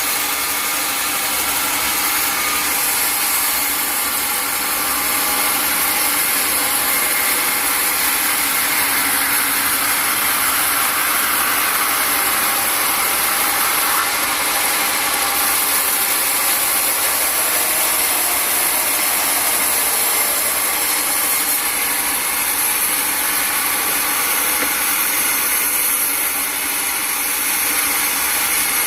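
A sawmill's powered saw running steadily and cutting through wood, with the mill's engine running underneath.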